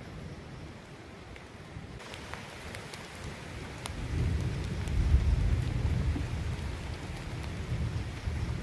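Campfire of driftwood crackling, with frequent sharp pops over a steady hiss. About four seconds in, a low rumble swells up, loudest a second later, then eases off.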